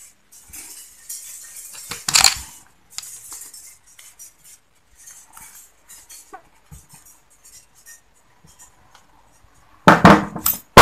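Small metallic clicks and scrapes as a screwdriver works on the top plate of a Yamaha Autolube two-stroke oil pump, with a sharp clink about two seconds in. Near the end there is a sudden loud metal clatter as a spring jumps loose from the pump.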